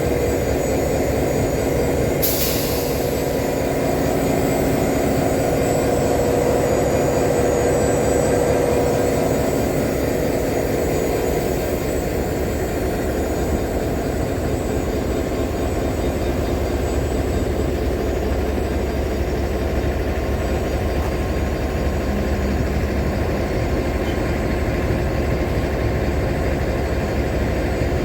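Class 69 diesel-electric locomotive's EMD 710 engine idling steadily while the train stands at the platform, with a brief sharp hiss of air about two seconds in.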